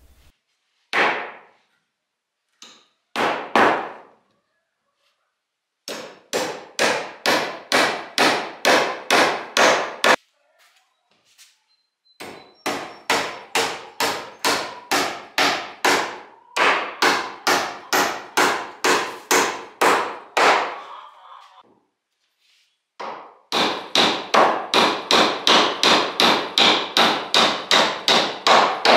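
A hammer driving nails into old pine fence boards. A couple of single blows come first, then four long runs of steady strikes at about three a second, with short pauses between nails.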